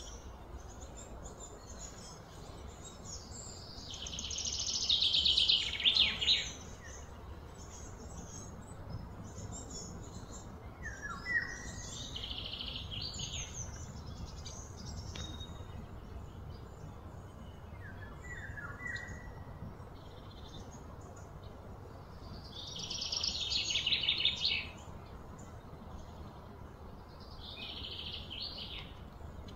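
Birds calling outdoors: scattered short chirps, and twice a loud high trill that builds up and then stops suddenly, over a steady low rumble of background noise.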